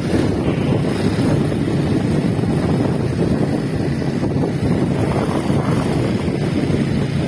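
A steady, loud, low rumbling noise with a faint hum in it, unchanging throughout.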